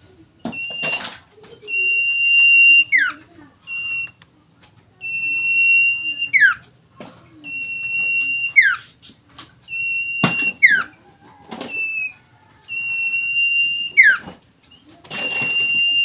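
Caged cipoh (common iora) singing: a long, steady, high whistle that ends in a quick falling note, repeated about every two seconds.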